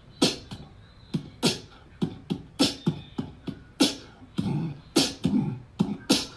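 Short, sharp hissing bursts, most with a low thump beneath, in an uneven rhythm of about two to three a second.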